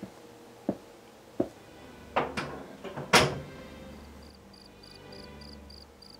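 Slow, evenly spaced thuds, about one every two-thirds of a second, then a run of louder bangs, the loudest about three seconds in and ringing on briefly. Then a cricket starts chirping steadily, about three chirps a second.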